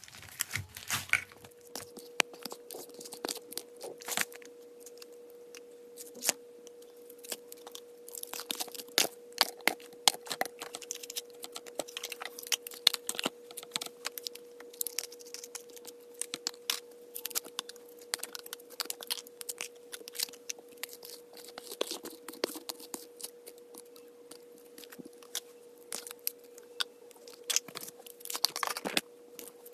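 Slime being squeezed and kneaded by hand, making a continuous run of wet sharp pops and crackles.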